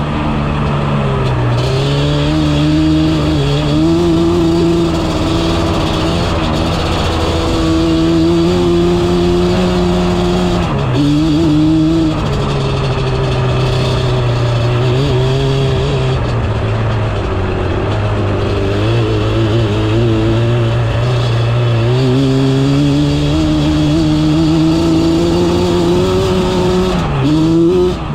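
Yamaha Banshee quad's two-stroke parallel-twin engine running on throttle, its pitch wavering up and down, with a brief dip in revs about eleven seconds in and another just before the end.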